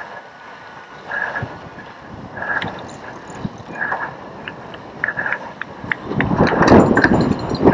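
A cyclocross bike is ridden over a bumpy grass course, heard from a camera mounted on the bike or rider. A short sound repeats about once a second, and from about six seconds in a loud, rough rattling builds.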